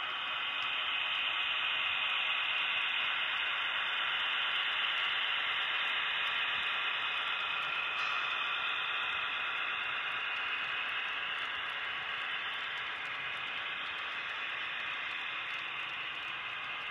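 HO scale model freight cars rolling along metal track, a steady hissing whir of small wheels on the rails that swells about a second in and slowly eases off.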